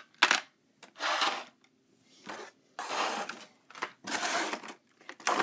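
Plastic packaging being handled: irregular rustles and clicks, with a sharp click shortly after the start.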